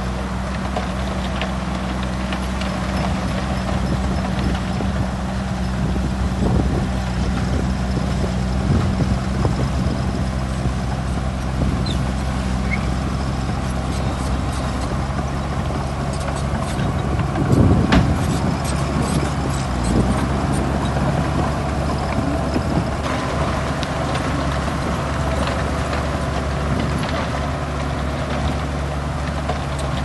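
Heavy diesel engines of a dump truck and bulldozer running steadily, with scattered metallic clanks and a louder rumbling burst a little past halfway.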